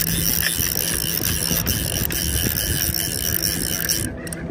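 Fly reel being wound in, its clicker ratcheting in a steady rasp that pauses briefly near the end.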